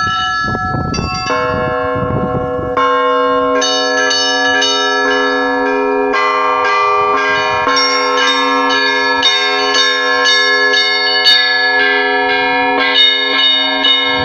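Several church bells rung together: smaller bells struck in quick, uneven succession, each note ringing on, over the steady hum of a larger bell that comes in about a second in. The ringing grows fuller about three seconds in.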